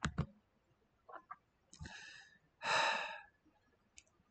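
A person sighing: a short breath, then a longer, louder breath out just past the middle. A couple of light clicks come at the very start.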